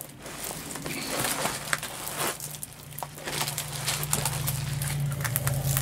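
Clear plastic film over a diamond painting canvas crinkling and crackling irregularly as hands move across it. A low steady hum sits underneath and grows louder after about three seconds.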